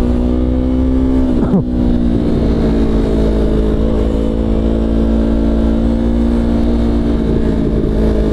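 Motorcycle engine running under way, with a gear change about a second and a half in: the revs drop sharply and the engine then settles into a steady cruise.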